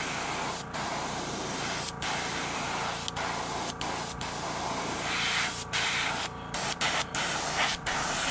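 Gravity-feed airbrush spraying pearl white paint: a steady hiss of air and paint, broken by short gaps several times.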